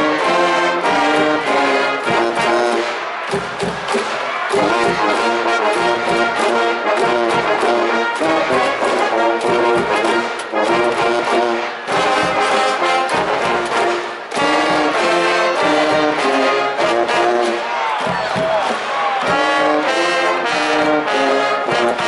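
High-school baseball cheering brass band of trumpets and trombones playing a rhythmic, loud fight tune in the stands, with short breaks between phrases.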